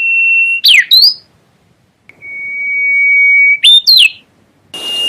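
A bird's whistled call, repeated in phrases: each is a long, pure steady whistle that grows louder, then ends in two or three quick sweeping notes. The phrases start and stop abruptly.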